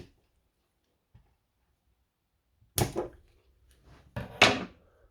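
Handling of tools and parts: mostly quiet with a faint tick about a second in, then two loud clattering knocks about three and four seconds in.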